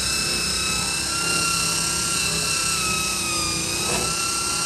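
Corded angle grinder running off a portable power station, grinding the van's rear step down to bare metal: a steady high whine over a hiss, its pitch sagging slightly about three and a half seconds in and then recovering.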